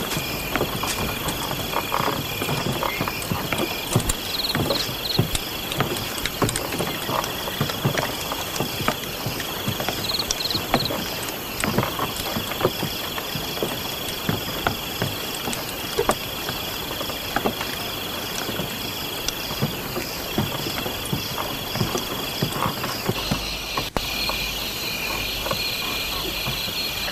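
Night ambience of insects trilling steadily in long stretches with short breaks, and frogs croaking, with scattered small clicks and rustles throughout.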